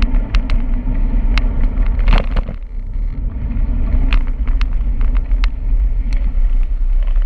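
Steady low rumble of a moving bicycle ride: wind and road noise, with scattered sharp clicks and rattles and a brief louder swell a couple of seconds in.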